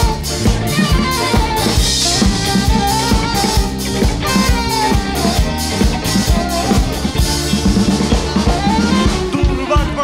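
Live band playing an instrumental passage, with a drum kit keeping a steady beat of kick, snare and rimshots under bass and a melodic lead line.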